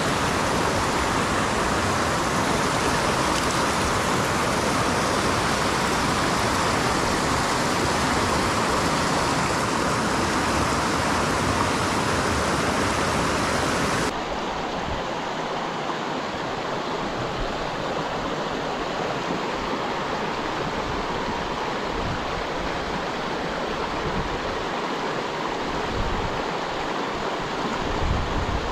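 Water of a shallow rocky stream rushing and splashing over stones, a steady noise. About halfway through it turns abruptly duller and a little quieter. A couple of low bumps come near the end.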